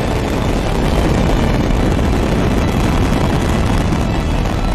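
Long March 5B rocket's engines running at full thrust during the climb after liftoff: a loud, continuous, dense rumble, heaviest in the low end.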